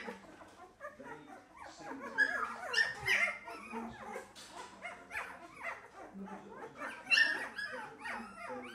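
A litter of 22-day-old wire-haired fox terrier puppies crying: many short, overlapping high whimpers and yips, with louder cries about two, three and seven seconds in.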